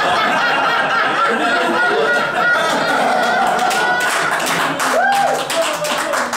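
Small crowd of spectators laughing and chattering, with scattered hand-clapping joining in from about four seconds in.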